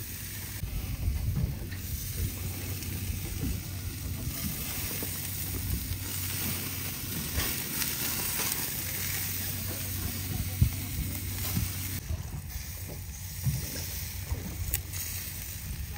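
Skirt steak and a coiled chorizo sizzling on a grill, a steady hiss with small crackles over a steady low hum.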